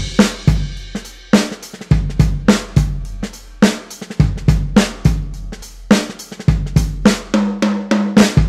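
Background music with a steady drum-kit beat: kick drum, snare and cymbals.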